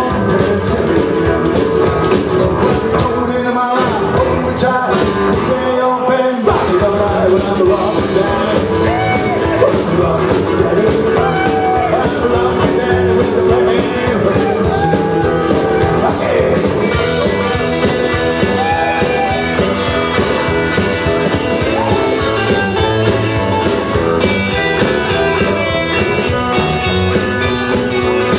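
Live rock-and-roll band playing through a club PA: electric bass, electric guitar and drums, with a sung lead vocal. The bass and drums stop briefly a few times about four to six seconds in, then the full band runs on.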